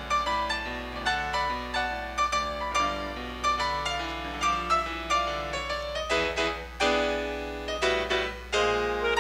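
Piano playing a slow instrumental piece in a series of struck, fading notes. A clarinet comes in with long held notes about six seconds in, and the music grows louder near the end.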